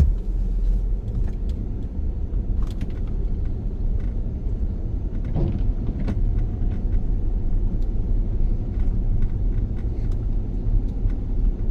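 A car driving slowly on snowy streets: a steady low rumble of engine and tyres, with a few faint clicks and knocks.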